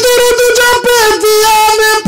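Man singing a devotional song into microphones, holding one long, nearly steady note.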